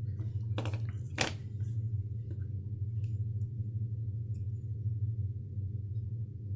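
Steady low hum with a few brief handling rustles and clicks, the two loudest about half a second and a second in.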